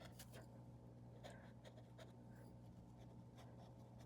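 Faint strokes of a paintbrush on canvas, a few short scrapes, over a steady low electrical hum.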